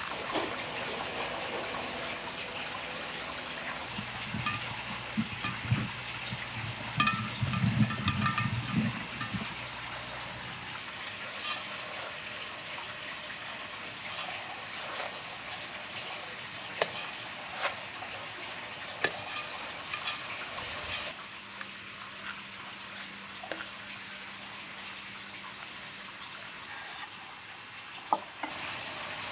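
Liquid pouring into a glass jar, then granulated brown sugar poured over sliced bananas in a large glass jar, with scattered sharp clicks and taps against the glass.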